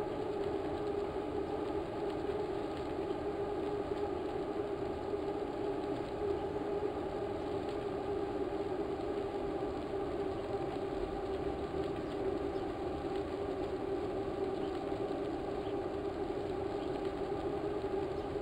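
Steady mechanical hum: an unchanging drone with a constant low tone and a fainter overtone above it.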